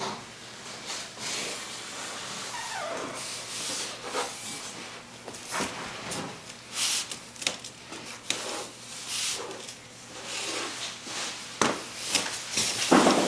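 Marker scraping along cardboard in irregular short strokes while the outline of a rubber inner tube is traced, mixed with rubbing and shuffling on the cardboard. A louder burst of noise comes near the end.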